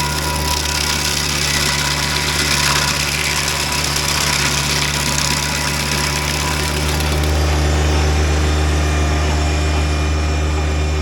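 Tractor engine running under load while the T.H.E. Stump Buster's PTO-driven 24-inch carbide-toothed wheel grinds into a dry stump, a steady engine drone under a harsh hiss of chipping wood. About seven seconds in, the high grinding noise thins out and the engine drone comes to the fore.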